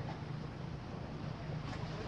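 Steady background of wind and sea: a constant low rumble with an even hiss and no distinct events.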